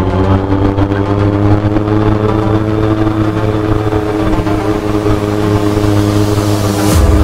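Honda CB-1 400's inline-four engine running steadily while riding at an even cruise, its pitch sagging slightly. Music comes in near the end.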